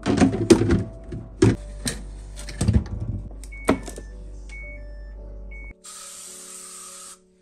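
Plastic freezer drawers and baskets clattering and scraping as they are pulled out, with several knocks in the first four seconds. About six seconds in, a spray can of cleaner hisses steadily for over a second.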